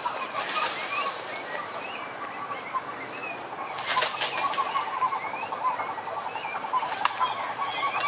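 Chorus of frogs and toads calling from a pond: many short, overlapping chirping calls, with a fast, even pulsed trill starting about five seconds in. Two brief bursts of hiss come about half a second and four seconds in.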